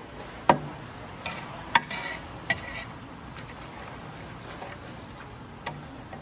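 A handful of sharp, irregular knocks and clinks: two loud ones in the first two seconds, one with a brief metallic-sounding ring, and a fainter one near the end.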